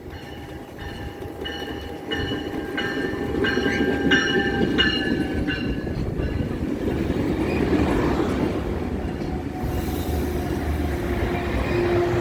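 Metrolink commuter train coming through, its rumble growing louder. A bell rings about every two-thirds of a second for the first half, then stops.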